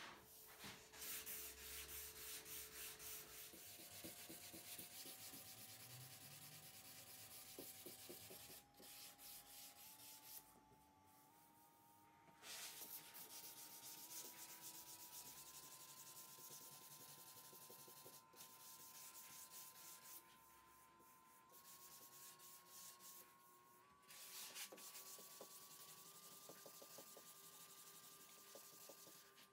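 Hand sanding a walnut end grain cutting board's edges with a sanding sponge, easing them to a faint 45 degree fillet: faint, repeated rasping strokes of abrasive on hardwood. The strokes pause briefly a few times.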